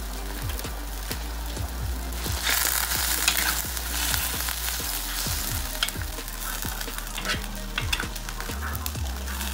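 Leafy greens sizzling in a cast-iron wok, stirred with a metal spatula that scrapes and clicks against the pan. The sizzle and stirring grow louder about two seconds in.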